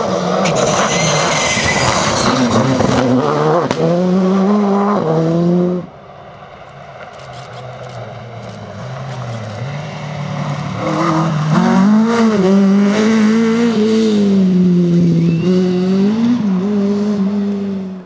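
Two rally cars driven hard, one after the other. First a Škoda Fabia R5's four-cylinder engine at high revs, cutting off about six seconds in; then an Opel Ascona 400's four-cylinder engine approaching, growing louder, and running at high revs with the pitch rising and falling.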